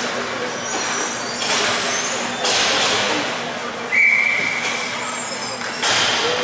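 Ice skates scraping and gliding on the rink ice in several noisy swells, with one short, steady referee's whistle blast about four seconds in, the loudest sound here.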